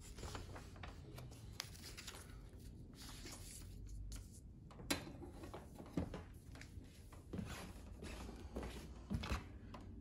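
A sheet of printer paper rustling as it is handled and laid down, with hand and handling noise and a few sharp knocks against the printer and table.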